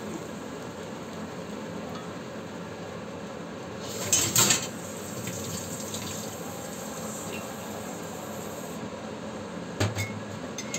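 Mushrooms in cream sauce simmering in a cast-iron pan, a steady bubbling sizzle. A brief louder hiss comes about four seconds in, and a single knock near the end.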